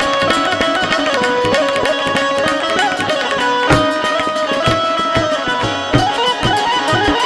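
Two tablas played together, with a melody instrument running over them: an instrumental passage of a Gujarati folk song.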